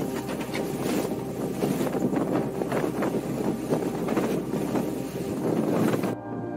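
Boat under way in choppy sea: wind rushing over the microphone and water splashing against the hull, over a low hum. It cuts off suddenly near the end, leaving soft background music.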